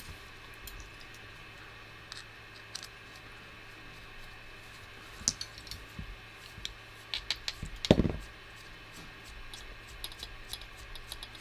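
Small clicks and taps of hand tools and parts being worked on a workbench during the teardown of an FPV quadcopter, with a cluster of clicks and a sharper knock about eight seconds in.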